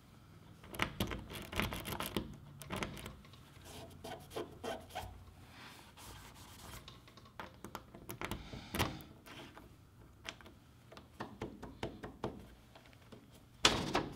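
Truck topper T-handle lock being wiped with a cloth and worked with a key: irregular small scrapes and metal clicks, then one sharp loud click near the end as the T-handle pops out. The lock has just been broken loose from seizing.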